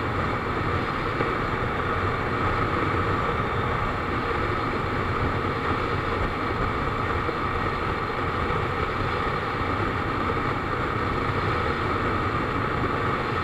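Motorcycle cruising at steady highway speed: an even rush of wind over the microphone mixed with the engine running at constant revs.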